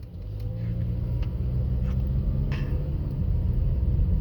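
Car engine and road noise heard from inside the cabin: a steady low rumble that swells about a third of a second in and then holds.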